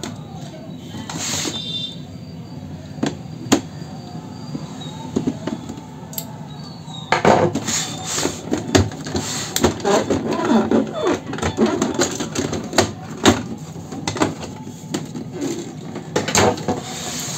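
Hard plastic clicks, knocks and scrapes of an Epson L360 inkjet printer's scanner unit and housing being unlatched and lifted off by hand. The sharp clicks are scattered throughout, with denser rattling and handling about seven to eleven seconds in and again near the end.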